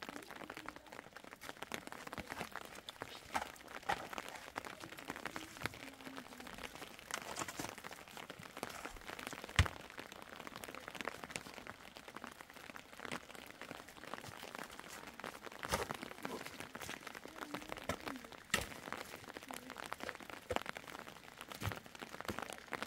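Metal shovel digging and scraping wet, stony earth, with a few sharper knocks of the blade, over a dense patter of rain.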